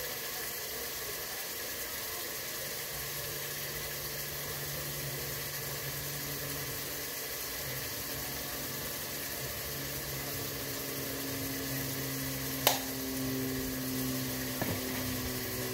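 Food cooking in a steaming pot on the stove, a steady hiss, with a single sharp click about three-quarters of the way through.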